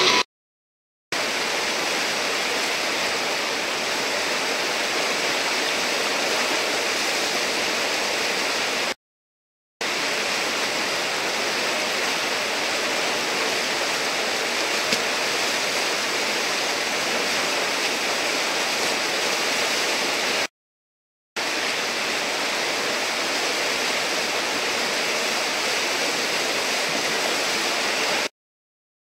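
Whitewater rushing steadily through a river hole, a dense even roar of churning water. It drops out to dead silence four times, for under a second each: about a second in, about nine seconds in, about twenty seconds in and just before the end.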